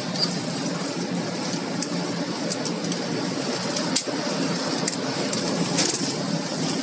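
A bus running along a road, heard from inside the cab: a steady low engine and road drone with scattered rattling clicks.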